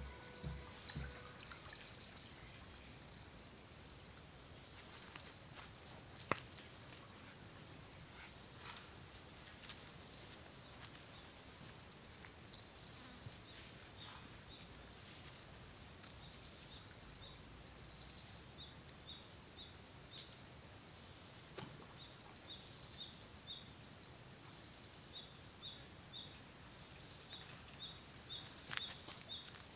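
Steady high-pitched drone of insects in tropical riverside forest, with short chirps scattered through the second half and a few soft clicks.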